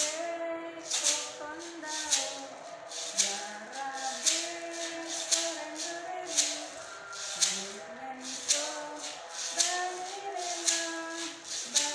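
Homemade maraca, a plastic jar filled with dry mung beans, shaken in a steady beat: a sharp rattle about once a second with lighter shakes between, along with the melody of a song.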